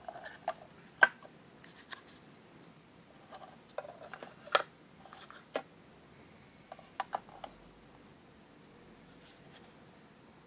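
Hard plastic parts of a miniature toy kitchen and a tiny cardboard food box being handled: scattered sharp clicks and taps, loudest about a second in and again about four and a half seconds in, with a few more near seven seconds.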